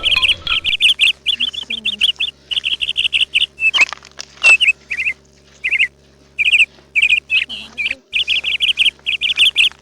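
Birds chirping loudly in quick runs of short repeated notes, with brief pauses between runs.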